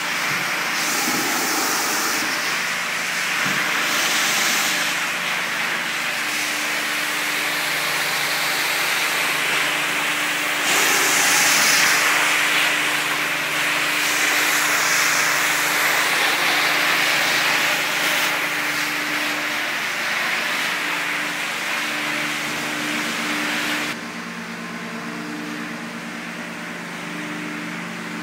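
Floor-cleaning machine running steadily on tile: a motor hum with a rushing hiss over it. Near the end the sound drops suddenly to a quieter, steady hum.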